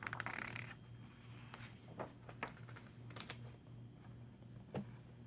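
Handling noise: a short rustle in the first half second, then scattered light clicks and taps.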